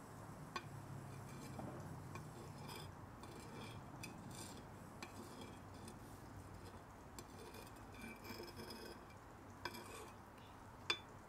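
Steel billhook blade stroked across a whetstone, a faint scrape repeated roughly once a second as the second side of the curved blade is sharpened. A few sharp clicks of the blade against the stone, the loudest near the end.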